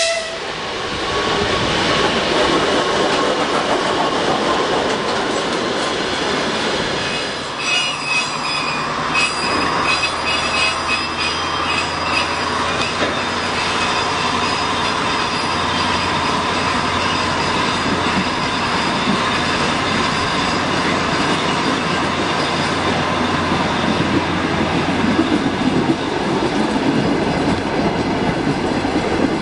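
Electric multiple unit train running close by, with steady wheel-on-rail rolling noise. High wheel squeal comes in about eight seconds in and fades a few seconds later.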